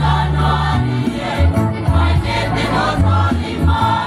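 School choir singing in harmony, with a deep bass line holding long notes beneath the voices.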